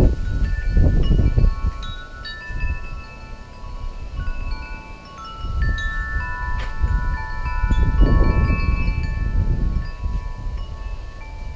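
Wind chime ringing: scattered, overlapping notes that each ring on for a second or more. Gusts of wind buffet the microphone, strongest near the start and again about two-thirds of the way through.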